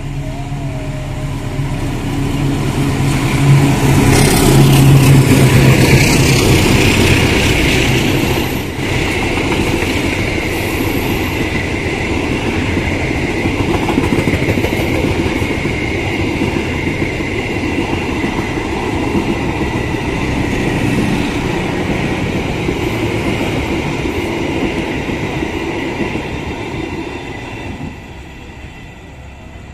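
Diesel-hauled passenger train passing close by: the locomotive's engine is loudest about four to six seconds in, then the long string of coaches rumbles over the rails for some twenty seconds with a steady high tone over it, fading near the end as the last coach goes by.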